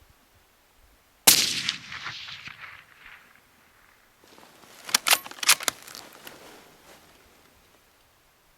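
A single suppressed rifle shot from a Remington 700 AAC bolt-action fitted with a Gemtech HVT suppressor, about a second in, its report echoing away over a second or so. A few seconds later comes a quick run of sharp metallic clicks as the bolt is worked to chamber the next round.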